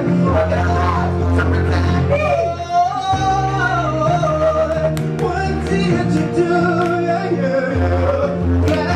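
A woman singing long, gliding notes over a backing of held bass notes that change every second or two.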